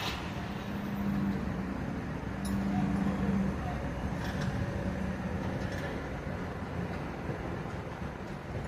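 Heavy diesel engine running steadily, its low hum swelling and easing a few times, with a few faint metallic ticks.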